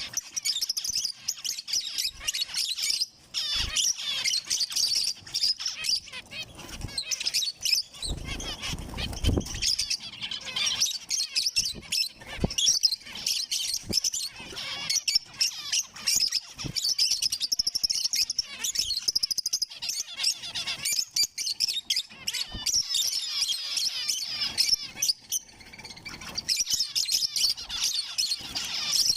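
Zebra finches chirping and calling in a dense, continuous stream of short high chirps. A brief low rumble comes about eight seconds in.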